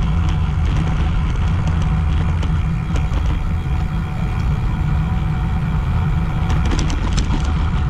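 Wind buffeting a riding cyclist's GoPro 8 microphone: a steady low rumble, with a short run of light ticks near the end.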